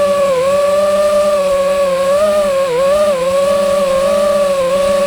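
FPV quadcopter's brushless motors whining at a steady high pitch, dipping briefly several times as the throttle eases, picked up by the action camera mounted on the drone.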